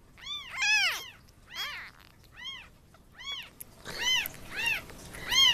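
Very young bottle-fed kitten mewing again and again, about one high-pitched cry a second, each cry rising and then falling in pitch.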